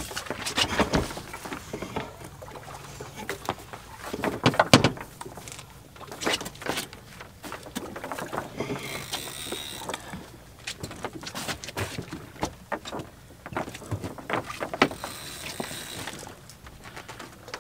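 Irregular knocks, clunks and rattles of gear being handled on a small fishing boat during a tuna fight, with water moving along the hull; the sharpest knock comes about five seconds in.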